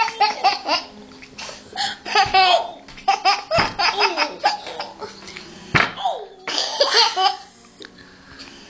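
A baby laughing in repeated bursts of short, high laughs with brief pauses between them. Two sharp knocks come in the middle.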